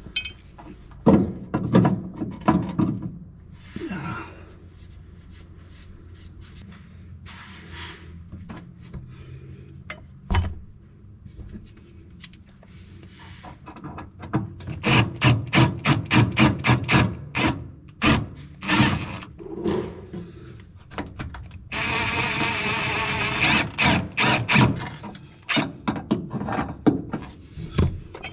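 Hand tools working on the gas-pedal mounting nuts and bolts: scattered knocks, then long runs of rapid clicking. About three-quarters of the way through, a small power tool runs for about two seconds with a high whine.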